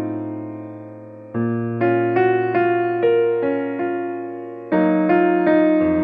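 Background piano music: a held chord fading away, then a gentle run of single notes starting about a second and a half in, and a new chord struck near the end.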